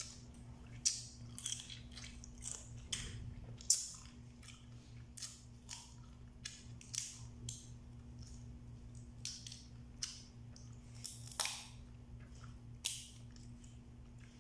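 Boiled blue swimming crab (alimasag) shells cracking and snapping in irregular crackles as the meat is picked out by hand and eaten, with crunching and chewing. A steady low hum runs underneath.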